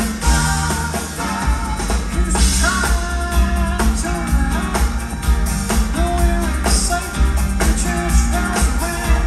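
Live rock band playing in a theatre: electric guitars, keyboards, bass and drum kit with a steady beat.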